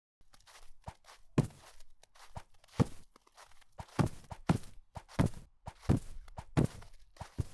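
Foley footsteps starting out of silence: a walking pace of firm steps, each a sharp hit with softer scuffs between, settling to about one and a half steps a second.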